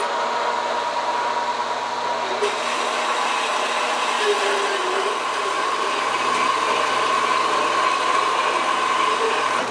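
A motor-driven power tool runs steadily with a hissing whine. Near the end it is switched off with a click and winds down.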